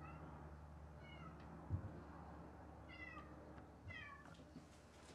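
A domestic cat meowing four times, faint and off-camera: short calls that slide down in pitch.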